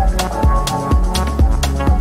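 Electronic background music with a steady drum beat.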